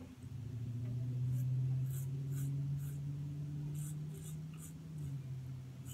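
Razor blade scraping through lathered whiskers on the neck in a series of short strokes, over a steady low hum that eases off about five seconds in.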